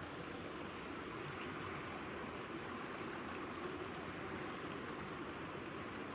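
Running water rushing steadily, an even unbroken noise.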